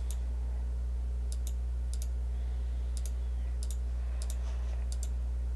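Computer mouse clicking: about seven sharp clicks, most of them in quick pairs, coming every half second to a second, over a steady low hum.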